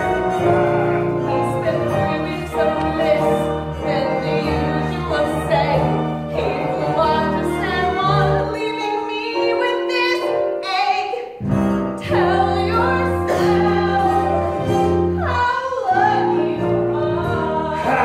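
A woman singing a musical-theatre number over instrumental accompaniment with sustained low notes.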